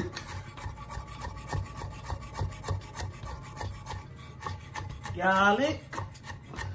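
Chef's knife mincing garlic on a wooden cutting board: quick, even chopping taps, several a second, with the blade scraping the board. A short pitched, voice-like sound stands out about five seconds in.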